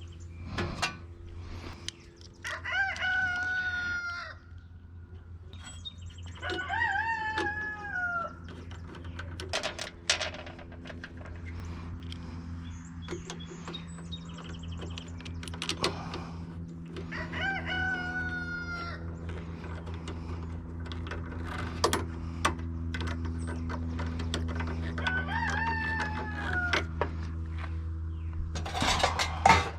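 A rooster crowing four times, each crow about two seconds long and falling in pitch at the end. Under it run a steady low hum and scattered sharp clicks.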